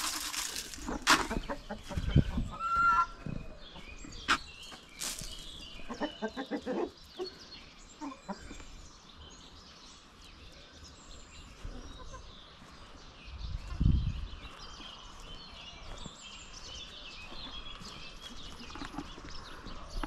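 Chickens clucking while they peck at freshly scattered grain, with a run of sharp clicks and knocks in the first several seconds and a dull low bump about two-thirds of the way through.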